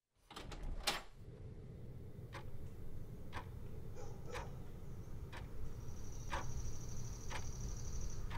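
Sharp ticks about once a second, like a clock, over a steady low rumble, with a few quicker ticks in the first second. A thin high whine comes in for the last few seconds.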